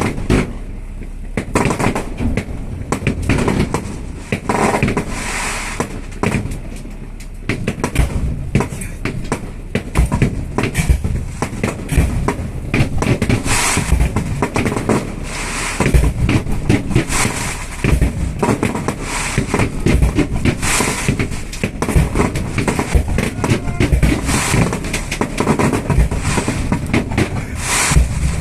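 Fireworks display going off close by: a fast, dense run of bangs and crackles that thickens after the first several seconds.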